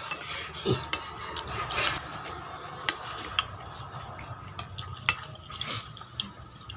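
Spoon stirring and clinking in a bowl of seblak, with scattered sharp clicks of metal on the bowl.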